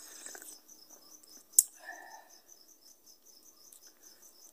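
Field crickets chirping steadily in an even rhythm, about four chirps a second, with one sharp click about one and a half seconds in, the loudest sound.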